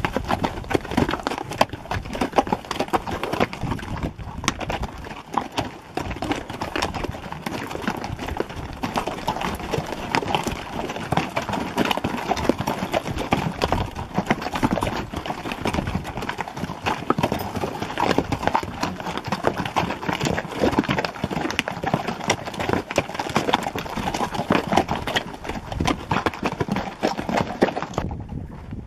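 Hooves of a string of pack mules clip-clopping past on a dirt trail, many overlapping steps close by. The hoofbeats stop near the end as the last mule passes.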